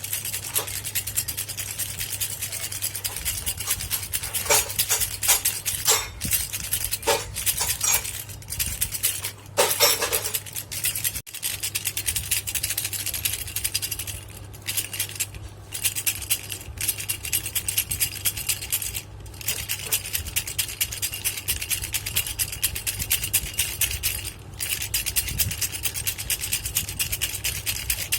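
Baby rattle shaken continuously, its beads clattering in rapid shakes, with a few brief pauses. A low steady hum lies underneath.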